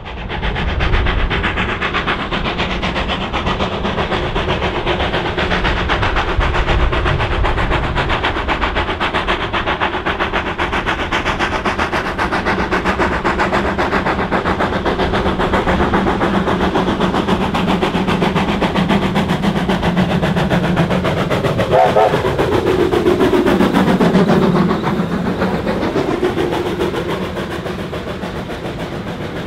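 NZR Ab-class steam locomotive 608 running past at speed with a rapid, steady beat. About three-quarters of the way through, as the engine draws level, its sound sweeps down in pitch and is at its loudest. The carriages then roll by more quietly.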